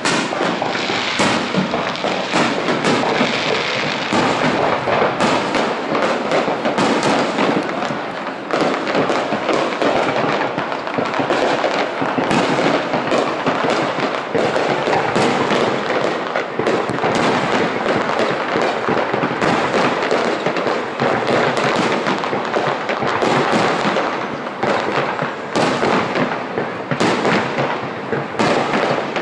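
Aerial fireworks exploding in a continuous, dense barrage: a rapid run of bangs and crackles with no pause.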